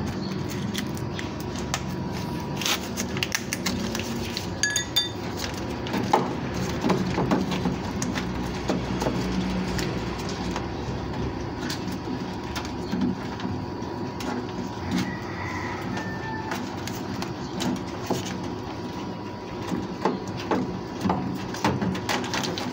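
Hands working inside a washing machine's cabinet: scattered clicks, knocks and rustling of wires and plastic parts as the capacitor and its leads are handled.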